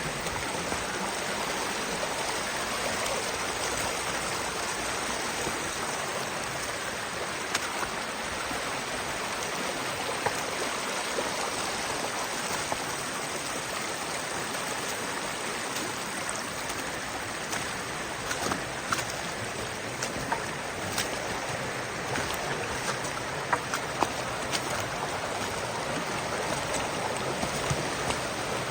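Creek water rushing steadily over rocks in the canyon, with scattered sharp ticks of splashing drops that come more often in the second half.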